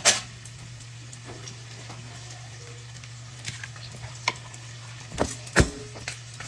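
A spoon or fork stirring raw eggs in a bowl, giving scattered clicks and taps against the bowl that are sparse at first and come more often in the second half, over a steady low hum.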